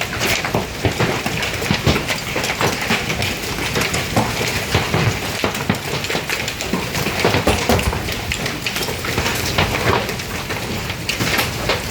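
Hail falling hard: a dense, continuous clatter of hailstones striking hard surfaces, with no let-up.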